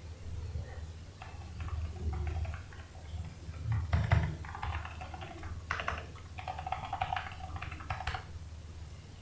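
Typing on a Havit Gamenote KB890L mechanical keyboard: a run of irregular key clacks from about a second in until near the end, with a louder knock about four seconds in. A steady low hum sits underneath.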